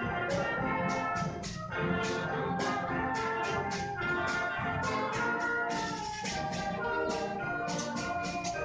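Concert wind band playing held chords of brass and woodwinds over a steady percussion beat.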